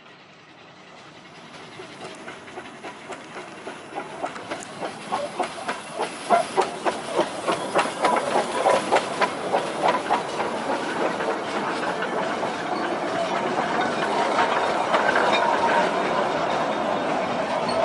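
1918 Kerr Stewart narrow-gauge steam locomotive and its carriages approaching and passing close by, with steam hissing and a regular beat of about two to three strokes a second. It grows louder over the first half, then turns to a steadier rolling noise as the carriages go past.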